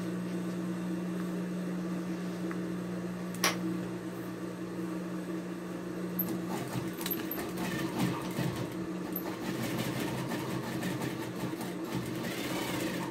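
A steady low hum, a single sharp click about three and a half seconds in, then from about six seconds until near the end an industrial sewing machine running a short burst of stitching.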